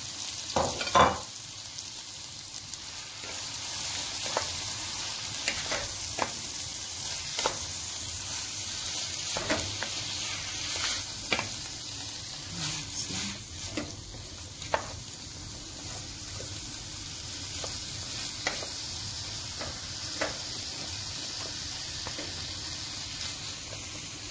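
Diced onions sizzling steadily in butter in a pan, with the scrape and knock of a wooden spoon stirring them every second or so. The loudest knock comes about a second in.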